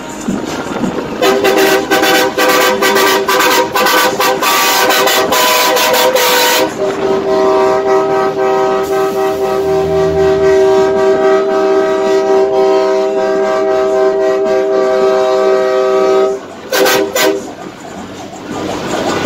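Truck air horn sounding a chord of several notes: rapid short blasts for about five seconds, then one long held blast of about ten seconds, then two brief blasts near the end, over traffic noise.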